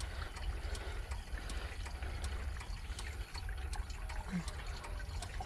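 Diesel poured slowly from a clear container through a wire-mesh strainer funnel into a tractor's fuel tank, trickling and dripping as the tank is topped back up to its mark. A steady low rumble runs underneath.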